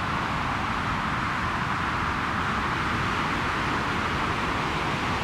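Synthesized white noise through layered band-pass filters, a steady hiss over a low rumbling layer, shaped as an imitation of wind and rain; the upper layer is tentatively meant as rain.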